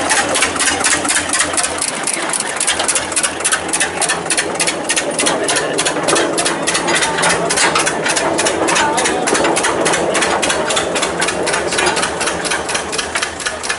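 Small narrow-gauge diesel locomotive engine running under load with a fast, even exhaust beat as it hauls a rake of steel skip wagons past.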